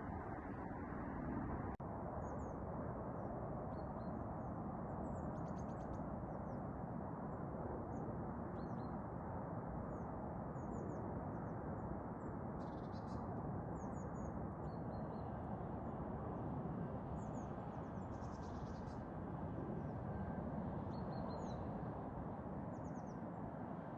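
Small birds chirping in short high calls every second or two, over a steady rushing noise.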